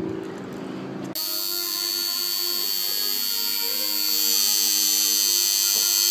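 About a second of outdoor noise, then a sudden cut to a tattoo machine buzzing steadily, with a high whine over it.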